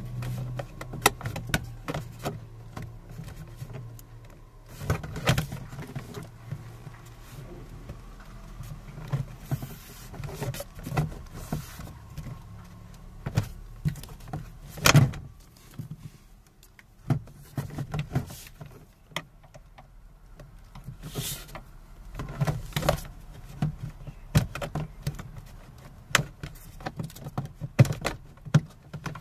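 Plastic door trim panel of a Renault Clio being handled and pressed onto the door: irregular knocks, clicks and rubbing of plastic against the door. The loudest knock comes about halfway through.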